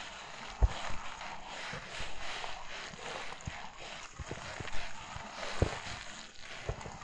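Footsteps crunching through fresh snow: a crackly crunch at each step, with a low thud under some footfalls.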